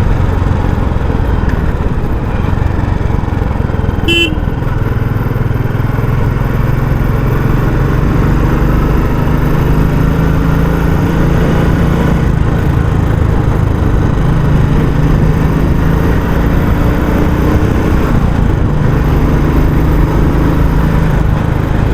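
Royal Enfield Classic 350's single-cylinder engine thumping through its stock exhaust while riding, its note rising and falling a little with the throttle. A short horn beep about four seconds in.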